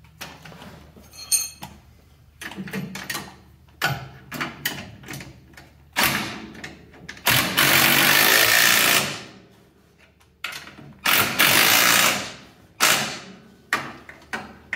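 Cordless impact wrench hammering in several bursts, the longest about two seconds, running Nylock bolts tight on the front suspension. Clinks of metal tools and hardware come between the bursts in the first few seconds.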